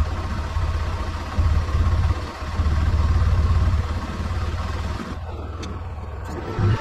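Engine of an Arctic Cat side-by-side UTV running steadily, a deep rumble that swells and eases slightly in loudness.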